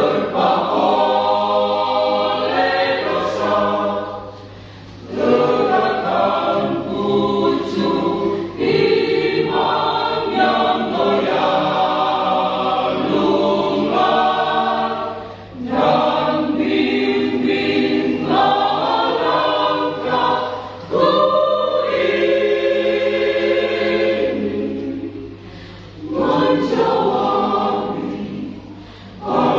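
Church choir singing in sustained phrases, broken every few seconds by brief pauses for breath.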